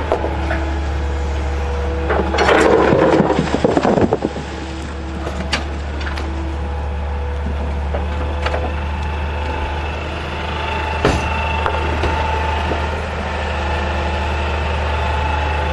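Heavy machine's engine running steadily under work, with held whining tones over a low drone. About two to four seconds in there is a loud crunching rattle, and a few sharp knocks follow.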